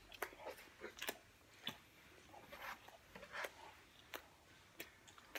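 Faint chewing and mouth sounds of a person eating a burrito: soft, wet clicks at irregular intervals, a few of them sharper.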